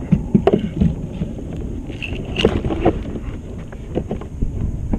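Wind rumbling on the microphone, with irregular knocks and rattles of fishing gear being handled on the kayak, bunched in the first second, again around the middle and once near the end.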